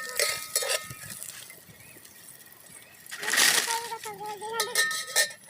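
Metal cooking utensils clinking against a pan, with a short loud hiss about three seconds in, followed by a wavering voice-like tone.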